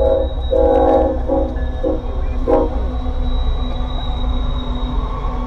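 Diesel locomotive air horn sounding a chord in several blasts for the grade crossing: a long blast, then two short ones, falling silent about halfway through. After that comes the steady rumble of the locomotives and loaded coal hoppers rolling past close by.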